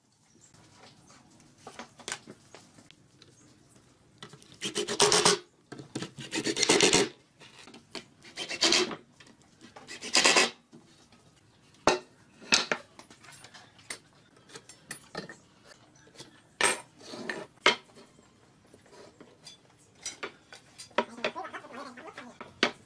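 Hand rasping or abrading on pine wood in four strokes of about a second each, followed by scattered light knocks and clicks.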